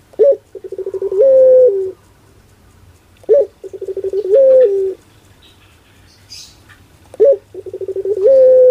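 Barbary dove (puter) of the long-voiced 'pelung' type cooing three times, about every three and a half seconds. Each coo opens with a short rising note, runs into a fast stuttering series of pulses, and ends in a long drawn-out note that drops in pitch.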